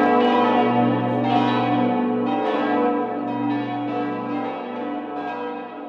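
The church bells of St. Bonifatius ringing together in a full peal, with fresh strikes every second or so over a sustained, overlapping hum. The sound fades steadily.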